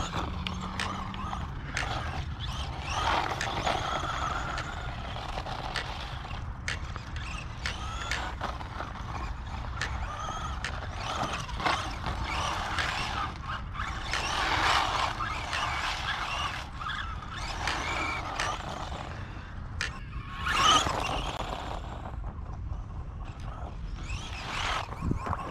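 Hosim 1:16 RC monster truck's brushed electric motor and gear drivetrain whining as it drives, the whine swelling and fading several times as the truck speeds up, passes and slows, over a steady low rumble.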